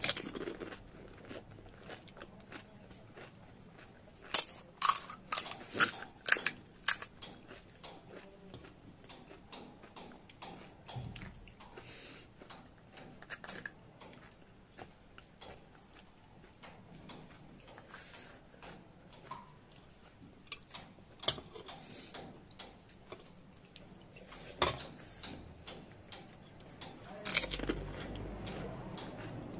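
Close-up eating of pani puri: a quick run of sharp crunches about four to seven seconds in as the crisp fried puri shells break, then quieter chewing with a few scattered clicks and a louder burst near the end.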